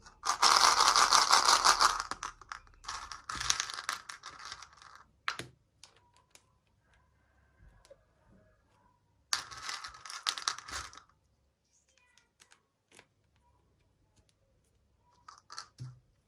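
Packaging being torn open and crinkled by hand, in three spells: a long loud one at the start, another about three seconds in, and a third about nine seconds in, with small clicks and taps in between.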